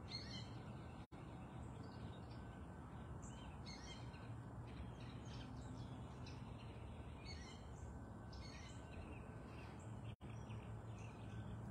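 Faint outdoor ambience: a steady low background rumble with scattered chirps from small wild birds.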